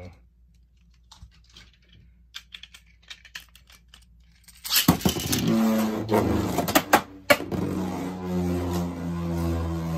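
Faint clicks of a Beyblade being readied, then about five seconds in a sudden launch: the metal-wheeled spinning top hits the plastic stadium and clacks sharply against it a few times, then settles into a steady whir as it spins.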